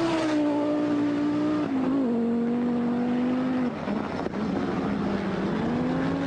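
Audi Quattro rally car's turbocharged five-cylinder engine running hard on a gravel stage. Its note holds steady, steps down twice, then climbs again near the end.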